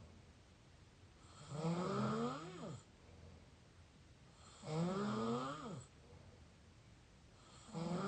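Open-mouth snoring: three snores about three seconds apart, the last one starting near the end. Each is a breathy, pitched drone that climbs in pitch and then drops away as it ends.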